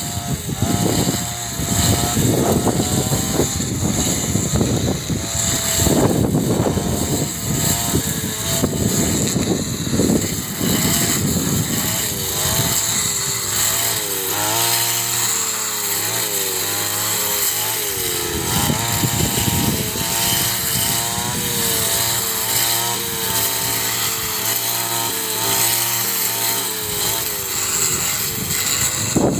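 Backpack brush cutter engine running hard, its pitch rising and falling over and over as the cutting head swings through tall grass.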